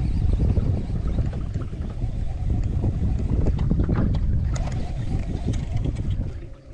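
Wind buffeting the microphone: a steady low rumble that eases off shortly before the end, with a few light ticks around the middle.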